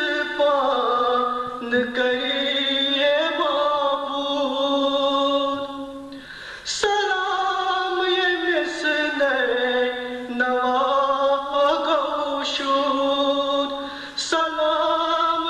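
A man's voice chanting a Kashmiri nauha, a Shia mourning lament, without instruments, in long drawn-out melodic phrases. It breaks briefly for breath about six seconds in and again near the end.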